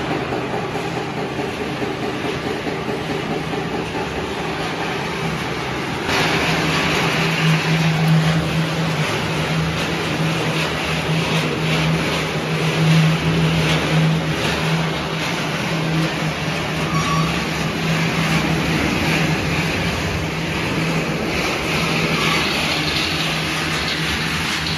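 Snack production-line machinery running: a steady motor hum with the continuous rattle of a rotating stainless-steel drum tumbling snack sticks. It gets louder about six seconds in.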